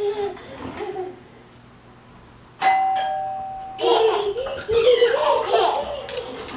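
Doorbell chime rung once about two and a half seconds in, a higher note followed by a lower one, fading over about a second. A young child laughs and babbles right after it, with some child vocalising before it.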